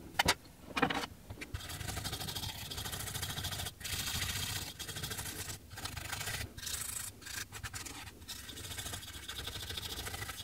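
Small stiff-bristled brush scrubbing back and forth over the opened iPhone 12's frame and back, cleaning it out before the new back glass goes on. The scrubbing comes in runs of strokes broken by short pauses, after a couple of sharp knocks near the start.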